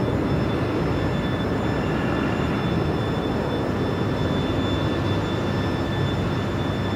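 Boeing 737-800's CFM56-7B jet engines rumbling steadily through touchdown and rollout, with a faint high whine over the low roar, slowly fading.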